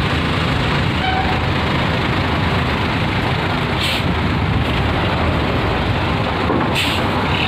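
Large diesel coach buses running at idle and low speed, a steady rumble. Two short hisses of air brakes come about four and seven seconds in.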